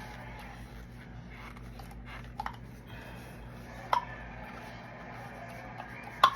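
Hard resin and silicone mold parts handled on a tabletop: a few sharp knocks and clicks, a small double one about two and a half seconds in, another at about four seconds and the loudest near the end, over a steady low hum.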